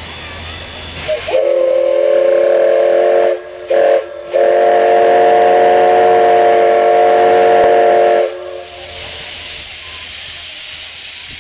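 CK124 steam tank locomotive's whistle sounding a steady chord of several low notes: a blast of about two seconds, a brief toot, then a long blast of about four seconds. Steam hisses before and after the whistle. Near the end the hiss grows as steam vents from the cylinder cocks and the locomotive starts to move.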